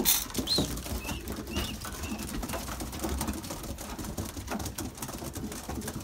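A loft full of young racing pigeons: cooing, a few short high-pitched calls in the first two seconds, and many light clicks of beaks pecking and feet on the floor.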